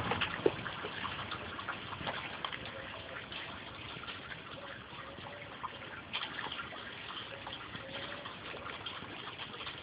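A single sharp snap of a cheap BB gun being fired, about half a second in, over a steady hiss with scattered light ticks.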